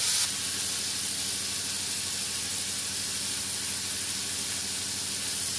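Onions and tomatoes sizzling steadily as they fry in ghee in a pan.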